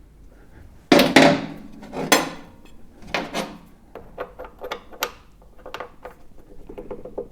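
Metal hand tools clanking and clinking as they are handled: two or three loud ringing clanks about a second in, then a run of lighter clinks.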